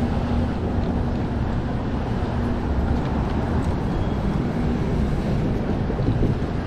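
Steady outdoor background noise: a low rumble with a steady hum that fades out about four seconds in.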